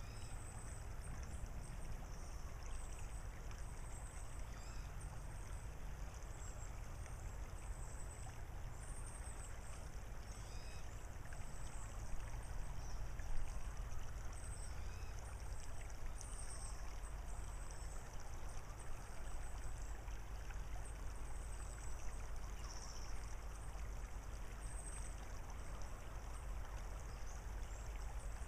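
Shallow tidal creek water running steadily over gravel, a continuous soft rush and trickle, with a brief louder swell about halfway through. Faint high chirps sound throughout.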